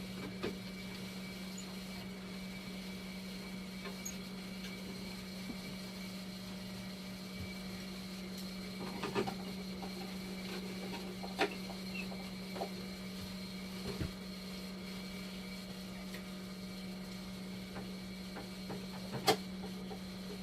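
Dialysis machine running: a steady low hum with faint high-pitched tones, and a few scattered sharp clicks.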